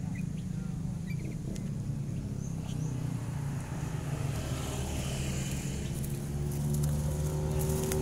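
A motor running with a steady low hum that grows louder and rises in pitch near the end, with a few short, faint bird chirps in the first few seconds.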